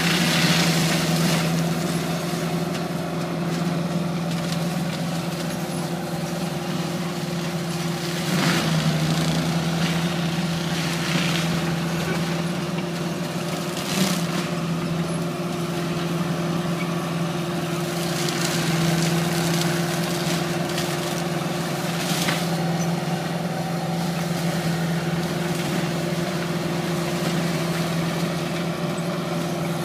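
Tree-mulching machine running steadily under a constant engine hum, with several short rushes of noise over it.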